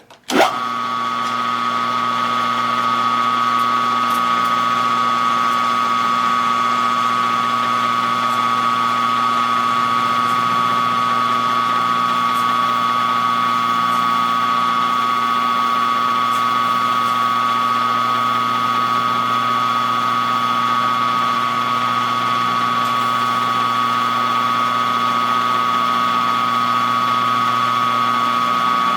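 A small metalworking machine tool is switched on about half a second in. Its motor and gears then run steadily with a constant high whine.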